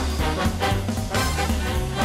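Background music: upbeat swing jazz with brass and a steady beat.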